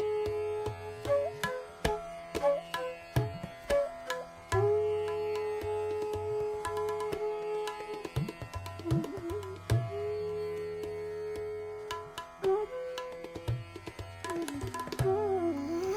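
Hindustani classical music in raga Bhopali: a bansuri bamboo flute plays long held notes with slides between them, over a steady tabla accompaniment.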